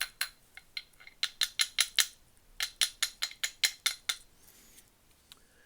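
Quick runs of light metal-on-metal taps on a rusted-on spark plug socket stuck to a Craftsman ratchet's anvil, knocking it in and out to break the rust bond. The taps come several a second in bursts and stop about four seconds in.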